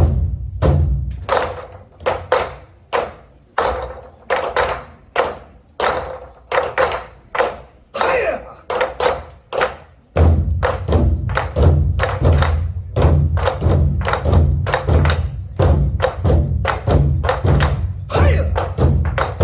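Korean Goguryeo barrel drums struck in a steady rhythm, with sharp, ringing strokes at about two a second. About ten seconds in, a heavy, dense low beat comes in under the strokes and the rhythm thickens.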